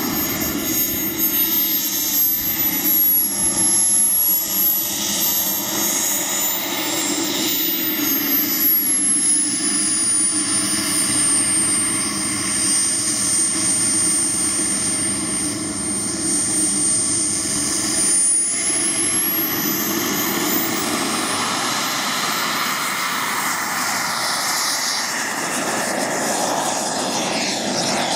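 Radio-controlled L-39 Albatros model jet's engine running with a steady high whine while it taxis. The whine sinks slightly, then rises sharply about twenty seconds in as the engine spools up for the take-off run.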